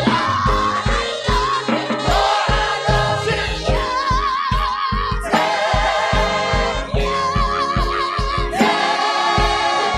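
Worship music: a choir singing with vibrato over a band, with a steady drum beat of about two thumps a second.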